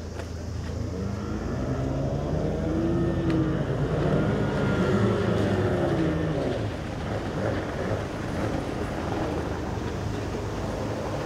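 Several racing boats' two-stroke outboard engines passing on the course, several engine tones rising and falling in pitch together. They are loudest about four to six seconds in, then fade into a steady wash of noise.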